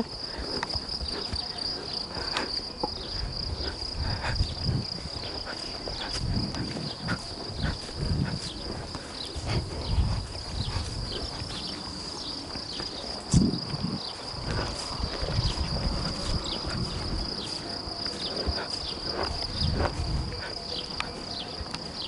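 Steady high-pitched chirring of insects in the grass. Under it come soft, irregular thumps of footsteps through grass, with a sharper knock about thirteen seconds in.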